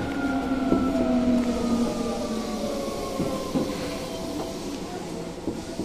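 Electric commuter train slowing into a station, heard from inside the car. The traction motor whine falls steadily in pitch under braking over the rumble of the wheels on the rails.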